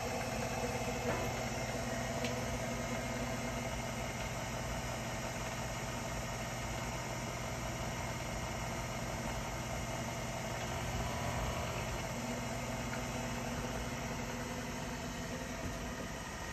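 KitchenAid stand mixer motor running steadily at low speed, driving a pasta roller attachment as a sheet of dough is fed through the rollers.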